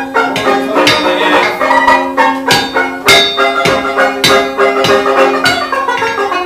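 Music of struck, ringing pitched notes over a held low note, with a beat of about two strikes a second.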